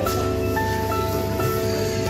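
Background music: a melody of held notes that change every fraction of a second, over a steady low bass.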